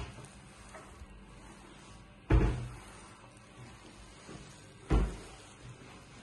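Kitchen wall-cupboard doors knocking shut, two sharp knocks about two and a half seconds apart, with a light click just before.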